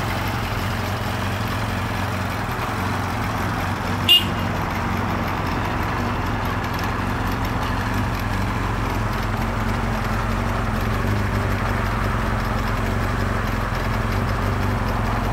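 Kawasaki Zephyr 400's air-cooled inline-four, bored up to 470cc on FCR carburettors, idling steadily. A single sharp click about four seconds in.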